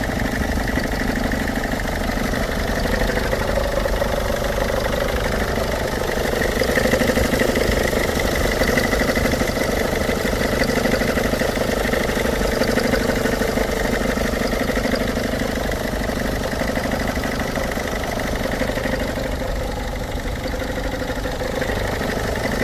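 An engine idling steadily, with a steady higher tone running over it. The owner says it is making several noises and does not know what the problem is.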